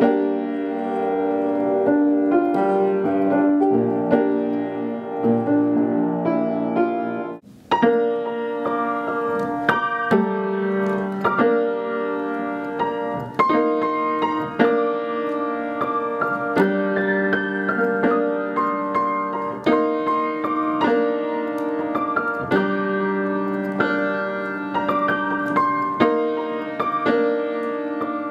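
Upright piano played by two people sharing the keyboard, one on the left-hand accompaniment and the other on the right-hand melody. The playing breaks off briefly about seven seconds in, then goes on.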